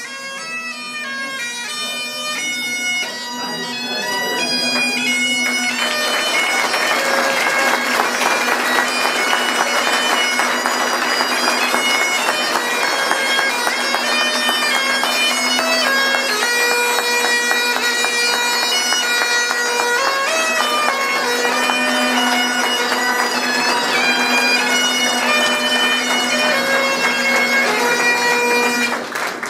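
A bagpipe playing a tune over its steady drone. It grows louder over the first few seconds, holds, and stops shortly before the end.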